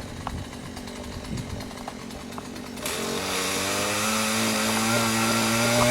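Chainsaw idling faintly, then opened up to full throttle about three seconds in, running hard with its pitch slowly climbing as it cuts into the willow.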